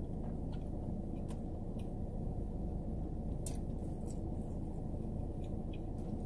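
Eating a sandwich: a few faint, soft mouth clicks over a steady low rumble.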